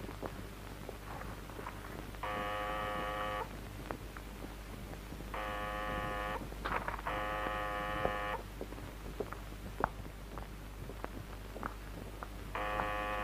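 Electric door buzzer sounding four times, each a steady buzz of about a second: two about two and five seconds in, a third right after the second, and a fourth near the end. Small clicks and knocks sound between the buzzes.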